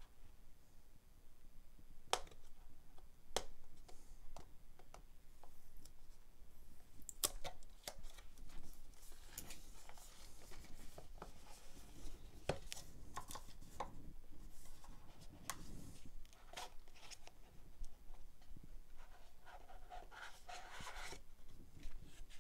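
Hands handling a cardboard box: scattered sharp taps and clicks, with stretches of cardboard scraping and rustling as the box is opened and the inner card tray slid out.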